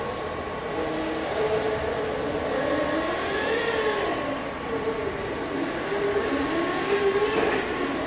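Electric drive motors of a four-wheeled Pioneer mobile robot whirring as it drives slowly, with the pitch rising and falling as it turns and changes speed, over a steady high hum.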